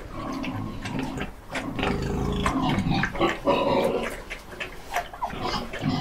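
Animal vocal sounds: irregular, overlapping calls mixed with short clicks and snaps, continuing through the whole stretch.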